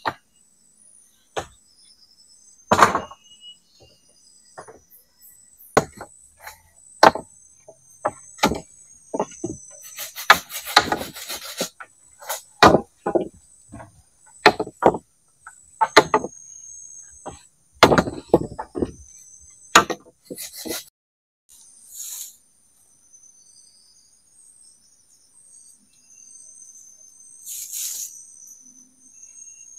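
Wooden and bamboo poles knocking and clattering as they are handled and laid on a pole frame, a run of irregular sharp knocks that stops about two-thirds of the way through. Insects chirp steadily and high-pitched throughout, left alone once the knocking ends.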